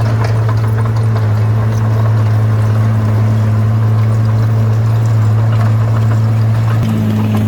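Bulldozer's diesel engine running at a steady low pitch under load, its note shifting slightly near the end, with faint clanking.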